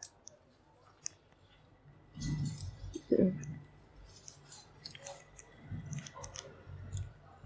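A cotton cloth rustling and being handled as it is unwrapped from a pressed block of homemade paneer, which is then lifted by hand: a few small clicks at first, then soft rubbing and low bumps from about two seconds in.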